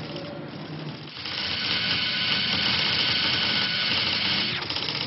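A steady, high mechanical whirr starts about a second in, holds level for about three and a half seconds, and cuts off suddenly near the end. A few short clicks follow.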